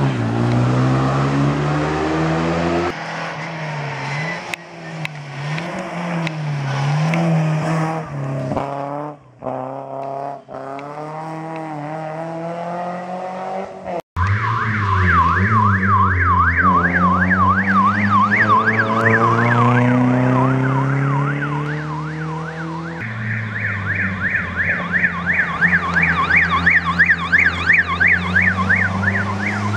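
A rally car's engine revving hard through a hairpin, its pitch climbing and falling with gear changes and lifts. After a cut, a fast warbling siren sounds over a 4x4's engine pulling uphill; it stops for several seconds and starts again near the end.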